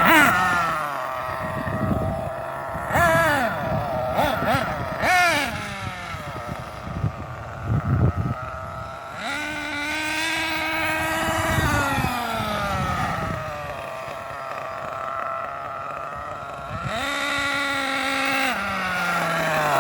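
Small nitro engine of a 1/8-scale Losi 8IGHT-T RC truggy, revving up and down repeatedly and holding steady speeds in between as it is driven. Wind buffets the microphone.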